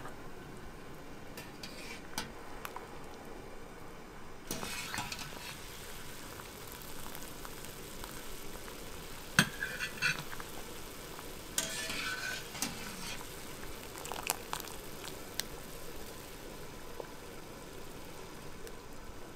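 Pierogi cooking in a pot of boiling water, a steady bubbling hiss. Several times around the middle, a slotted metal spoon clinks against the enamelled cast-iron pot and water splashes as dumplings are lifted out.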